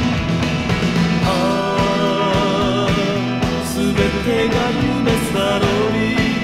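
Rock band recording, a passage between sung verses: drums keep a steady beat under sustained, wavering melodic lines.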